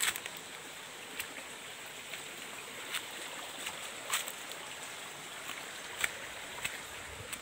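Steady rush of a forest stream with a thin, high, steady insect drone, and irregular crunching footsteps on dry leaf litter every second or two.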